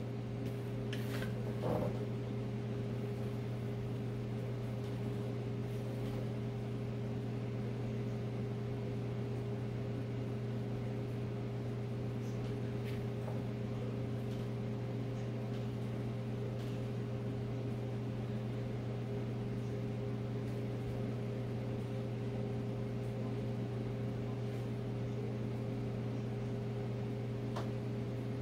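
Steady hum of an electric motor and fan, a low even drone with a few fixed tones that never changes. A few faint taps now and then as chopped peppers are laid on a mesh tray.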